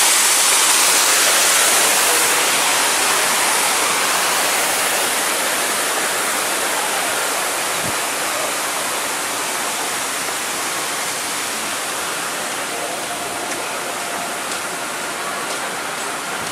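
Water cannon spraying and splashing into a pool: a steady rushing hiss of falling water that slowly fades.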